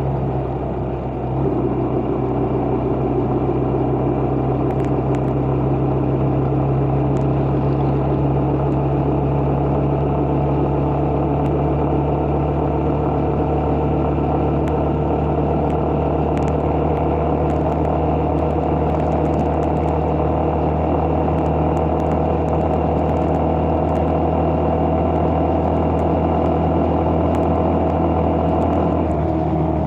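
Vehicle engine running at a steady cruising speed, with road and wind noise; it eases off briefly about a second in, then holds steady.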